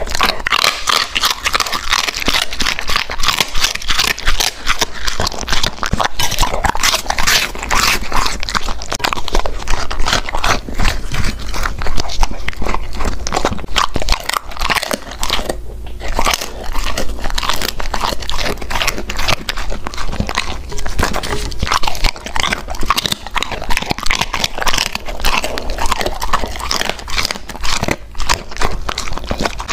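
Golden retriever chewing and crunching food close to the microphone, a steady stream of crisp crunches and mouth noises with a brief pause a little past halfway.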